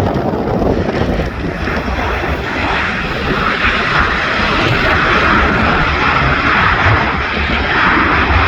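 Airplane engines on a landing approach: a loud, steady rumble, with a higher engine whine building from about three seconds in.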